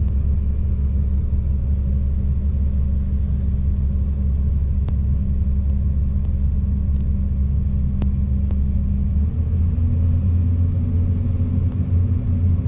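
Excavator's diesel engine running steadily under load, its note shifting slightly about nine seconds in. A few faint clicks sound over it.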